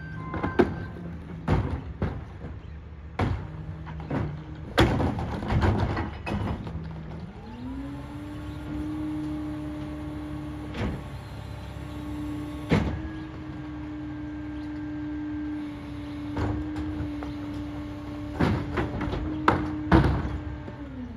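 Rear-loader garbage truck working a pickup: the diesel engine idles, then about seven seconds in revs up to a higher steady speed for the hydraulics and holds there until near the end. A wheeled trash cart is tipped into the hopper, with repeated loud bangs and clatter of the cart against the truck's rear.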